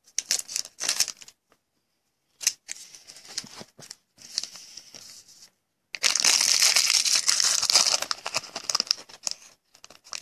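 Plastic crinkling and rustling from trading-card packaging being handled, in scattered bits at first, then a denser, louder spell of about three seconds from around six seconds in.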